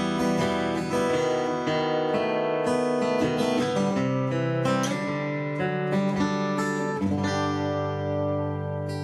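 Acoustic guitar playing strummed and picked chords that ring on, changing chord every second or two.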